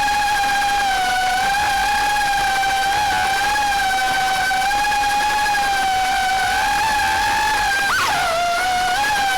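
Quadcopter drone's propellers and motors whining at a steady pitch in flight, with a brief dip and recovery in pitch about eight seconds in as the motor speed changes.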